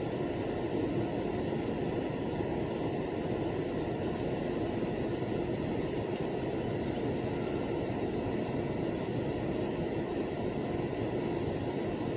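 B&P local freight train's cars rolling past, a steady, even rolling noise.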